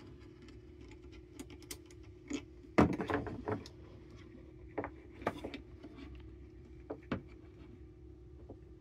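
Scattered clicks, taps and small knocks of a plastic-and-metal mount being handled and fitted onto the end of a telescoping measuring stick, the loudest cluster about three seconds in, over a steady low hum.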